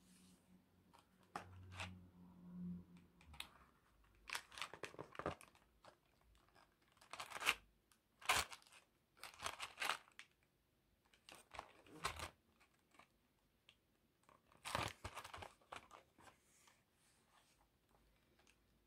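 A cardboard biscuit box being handled and turned over in the hands: irregular bursts of rustling, scraping and tapping against the card, with short pauses between them.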